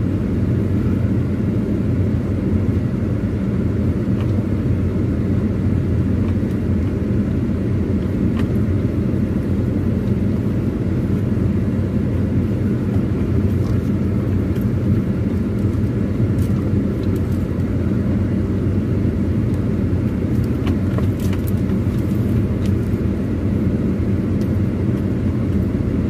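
Car driving slowly over a bumpy dirt forest track, heard from inside the cabin: a steady low engine and road rumble, with a few faint clicks and knocks.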